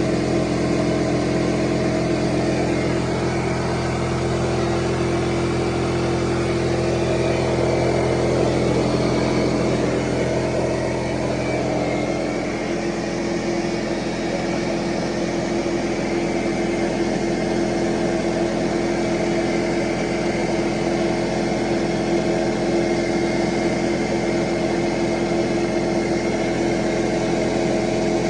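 Dewalt DWFP55126 6-gallon pancake air compressor's oil-free pump and motor running steadily, filling the tank from empty toward its roughly 165 psi cut-out. The low hum thins about twelve seconds in.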